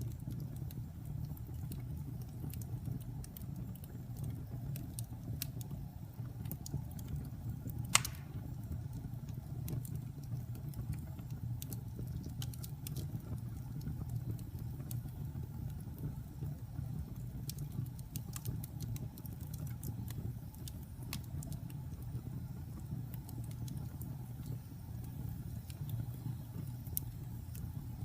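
Fire burning in a fireplace: a steady low rumble with scattered crackles and one loud pop about eight seconds in.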